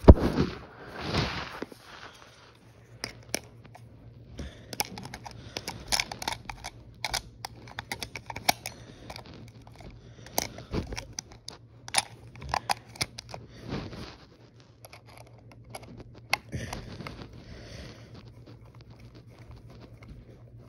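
Batteries clicking and knocking against a plastic toy walkie-talkie as they are fitted into its battery compartment, in many short irregular clicks. A hand rubs over the microphone in the first second or so. A faint low hum runs underneath.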